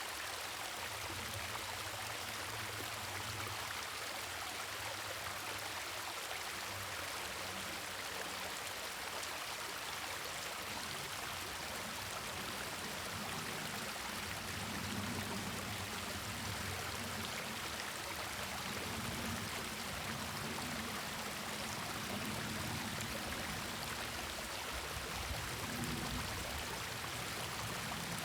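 River water flowing steadily over stones, a continuous rushing with a low, uneven rumble underneath that swells and eases.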